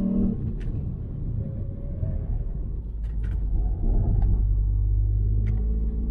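Ford Puma ST's turbocharged 1.5-litre three-cylinder engine and road rumble heard from inside the cabin through a corner. The steady engine tone drops away just after the start, and the low rumble grows louder about four seconds in as the car pulls out of the bend, with a few short sharp clicks along the way.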